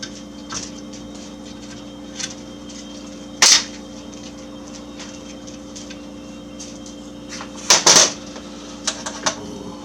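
Sharp clicks and clatter of tools and small parts being handled on a workbench, a loud one about three and a half seconds in and a close pair near eight seconds, over a steady low hum.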